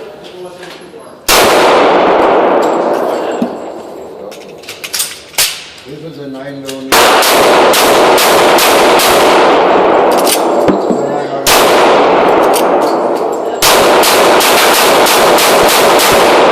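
Ruger SR40 .40 S&W pistol firing, recorded on a phone: four loud sudden shots about one, seven, eleven and a half and thirteen and a half seconds in, each followed by a long loud ringing wash, with smaller sharp clicks in between.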